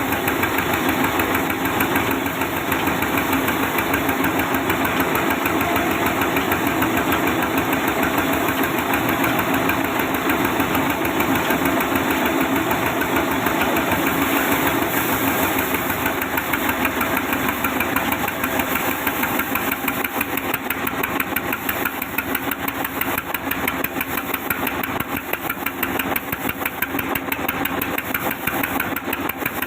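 Sawmill machinery running steadily: a loud, continuous mechanical drone with a fast, even pulsing that does not change.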